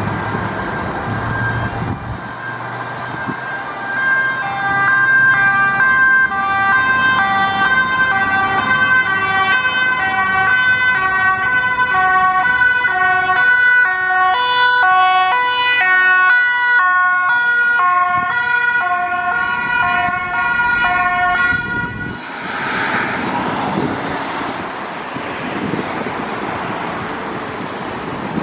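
Ambulance siren sounding, its notes switching back and forth between pitches as it passes close by. It stops abruptly about 22 s in, leaving road traffic noise.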